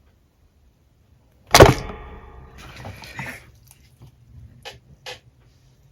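Slime being played with by hand: after a quiet start, one sudden loud squish about a second and a half in, trailing off into crackling, then a few small clicks and pops.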